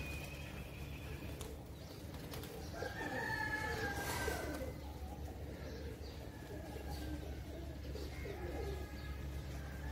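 Pigeons cooing, low wavering coos that come loudest about three to five seconds in and again near the end.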